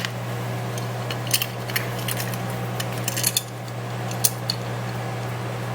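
Small metal repair tools clicking and clinking against each other and the workbench, several separate light clicks, over a steady low electrical hum.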